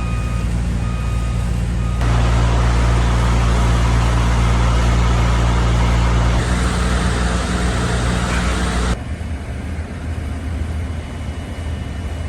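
Heavy construction machinery engine running steadily on a building site, with a back-up alarm beeping in the first couple of seconds. The sound jumps abruptly in level twice, about two seconds in and near nine seconds.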